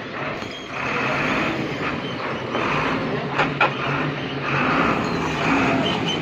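Truck engine running steadily, with two sharp metallic clicks about three and a half seconds in.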